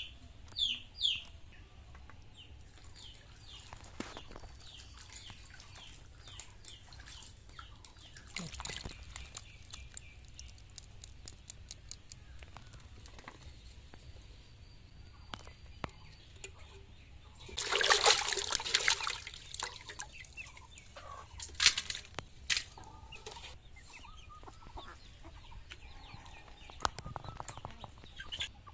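Chickens clucking now and then, with a run of quick, falling high chirps in the first second or so. About 18 seconds in comes a loud, noisy burst lasting about two seconds, and a sharp knock follows a few seconds later.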